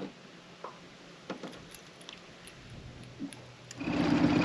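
A few faint, scattered clicks and ticks over a quiet background, then near the end the loud, steady hum of a small boat's outboard motor running comes in.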